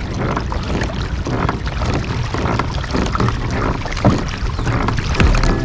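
Kayak moving on open water: water splashing and lapping against the hull in an irregular stream, with wind rumbling on the microphone.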